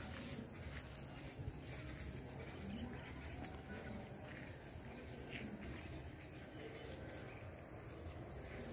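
A cricket chirping faintly and steadily, a short high chirp about twice a second.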